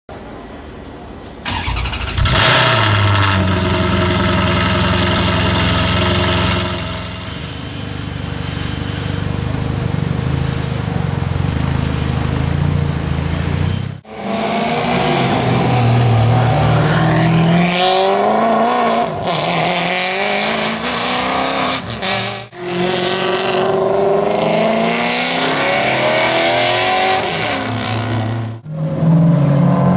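Maserati GranTurismo MC race car's V8 starting about a second and a half in with a quick blip of revs, then idling steadily. After a break it is revved and accelerated hard several times, the pitch climbing and falling as it goes through the gears.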